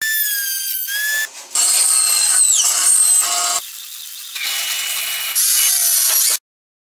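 A string of short workshop tool sounds cut one after another: a router spinning with a high steady whine, then louder power-tool cutting, then the crackle of a MIG welder, then a drill driving a screw into wood, which cuts off abruptly near the end.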